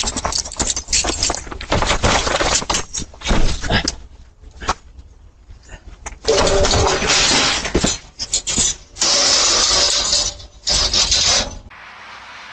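Harsh rustling and buffeting right against a doorbell camera's microphone, in loud irregular bursts with short gaps, the longest in the second half, stopping abruptly a little before the end.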